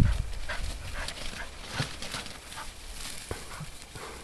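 Springer spaniel snuffling and rustling through long grass, with short irregular sniffs and rustles. A low thump of wind or handling on the microphone comes right at the start.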